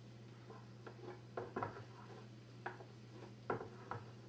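A spoon tapping and scraping against a mixing bowl and a metal muffin tin while batter is spooned into the cups: a handful of light, scattered clicks over a steady low hum.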